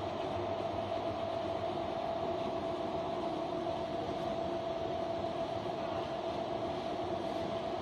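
Ring die organic fertilizer granulator running steadily: a continuous mechanical rumble with a steady hum.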